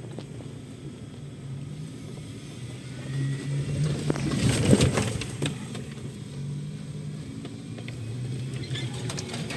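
Off-road vehicle's engine running steadily at low revs, with a louder rushing surge that peaks about four and a half seconds in.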